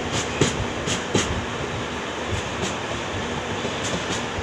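Passenger train running along the track, heard from inside a coach: a steady rumble of the wheels, with clicks in quick pairs as the wheel sets pass over rail joints, four pairs at uneven gaps of about a second.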